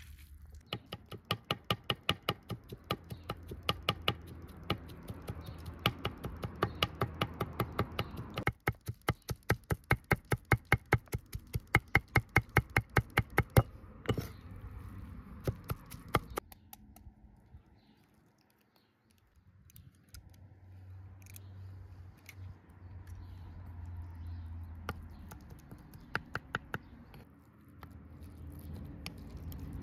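Knife chopping on a cutting board: a rapid, steady run of sharp strokes at about four a second that stops about halfway through, followed by softer scattered knocks, a brief lull, and a low hum with an occasional click.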